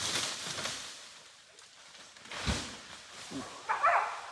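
Rustling in brush and branches, a dull thump about two and a half seconds in, then a short bark from a West Siberian Laika hunting dog near the end.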